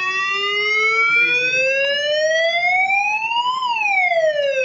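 Electronic fire alarm sounder wailing: its pitch rises slowly for most of the time, peaks about three and a half seconds in, then falls.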